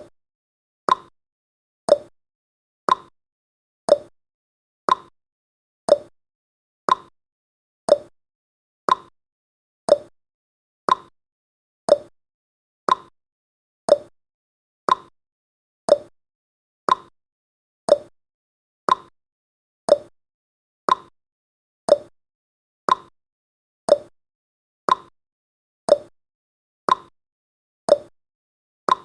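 Clock tick-tock sound effect marking each second of a countdown: one sharp click a second, alternating between a higher tick and a lower tock.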